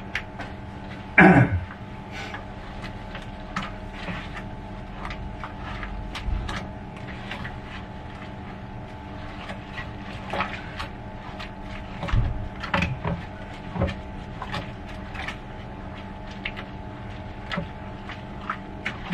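Stirring a grain mash in a plastic bucket mash tun: a slotted spoon knocking and scraping against the bucket, with a loud scrape falling in pitch about a second in and scattered knocks after. A steady hum runs underneath.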